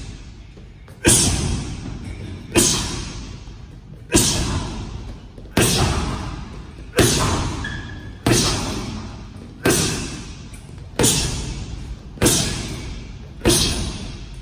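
Gloved straight punches, jabs and crosses, landing on a heavy bag: about ten single thuds at a slow, even pace of roughly one every second and a half, each trailing off in a long echo.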